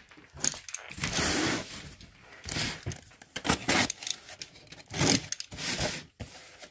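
Cardboard box being opened: packing tape ripped off and cardboard flaps scraping, in about five separate rips and scrapes, the longest about a second in.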